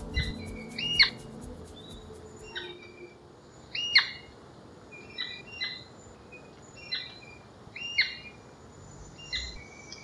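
Royal flycatcher (Onychorhynchus coronatus coronatus) calling: short, sharp whistled notes, each sweeping quickly downward, repeated at uneven intervals of about a second.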